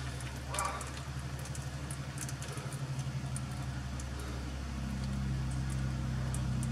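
A steady low mechanical hum with a fast throb, a little louder from about five seconds in, with a few faint clicks over it.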